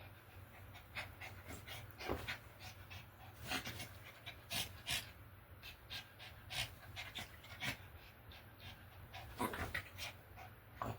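A dog panting in short, uneven breaths, a couple per second: it is overheated.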